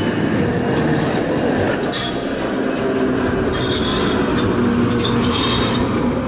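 Rail vehicle rolling along track with a steady clatter and a few brief high-pitched wheel squeals. This is an added sound effect for a passing tram, not the tram's own recorded sound.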